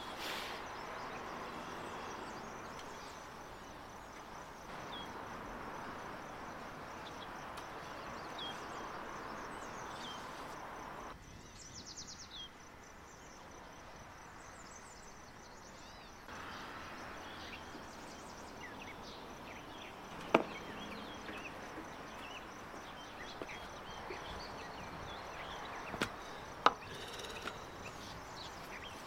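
Hands kneading and working bread dough, first in a wooden bowl and then on a floured wooden board, a soft steady handling noise. A few sharp knocks on the board, one about twenty seconds in and two close together near the end.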